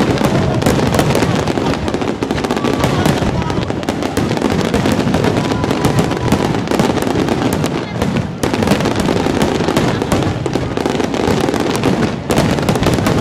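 Aerial firework shells bursting in a dense, rapid barrage, reports overlapping into a continuous crackling rumble. There are brief lulls about eight seconds in and again near the end.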